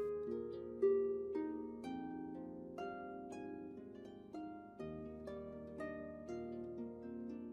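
Background music: a slow melody of plucked-string notes, about two a second, each ringing out and fading over lower held notes.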